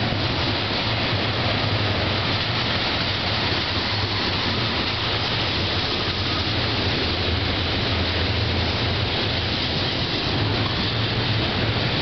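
Double-stack container train's well cars rolling past close by: a steady rumbling rush of steel wheels on rail with a constant low hum underneath.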